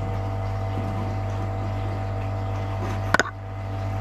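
Brewferm electric brewing pump running with a steady hum, circulating hot water through the brewer without leaks. A single sharp click or knock comes about three seconds in.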